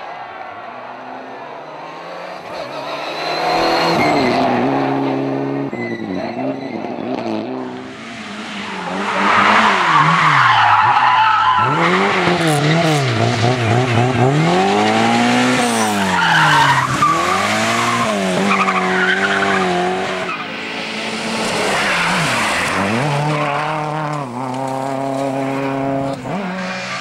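Competition car engine revving hard, its pitch rising and falling again and again as it accelerates, lifts and shifts, with tyres skidding.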